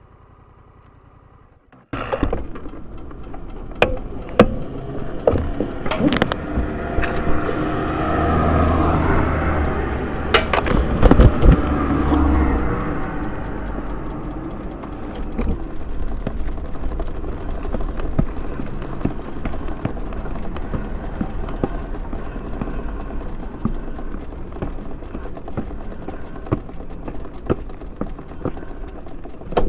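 A motor vehicle passes, its engine rumble rising to a peak about eight to twelve seconds in and then fading, over steady outdoor traffic noise with scattered clicks.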